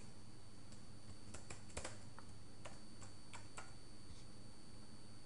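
Computer keyboard being typed on: a run of irregular keystrokes in the first four seconds, then stopping.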